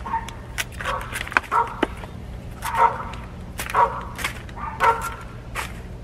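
A dog barking repeatedly, about once a second, with a few sharp snips of hand pruners cutting kohlrabi leaf stems and a steady low hum underneath.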